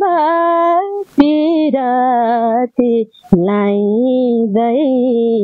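A woman singing a Nepali folk song solo in long held notes, her phrases broken by short pauses about a second in and again around three seconds.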